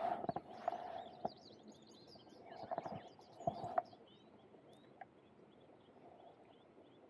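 A small bird chirping in a quick series of short, high notes, with knocks and rustling handling noise in the first few seconds.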